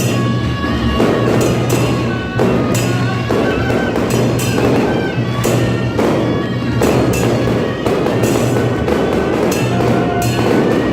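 Traditional Taiwanese temple-procession music: reed horns holding shrill notes over drums, with frequent cymbal and gong strikes.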